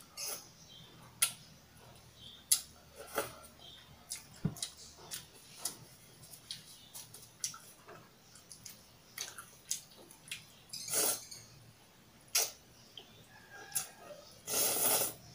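Close-miked eating of kimchi ramen: wet chewing and mouth smacks with many short sharp clicks, and noodle slurps, the longest near the end.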